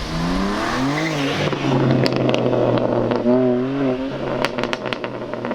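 BMW M3 G80's S58 twin-turbo straight-six, running with its particulate filter and mid silencer deleted, revs up over the first second and then holds. Sharp exhaust crackles and pops come through in the second half.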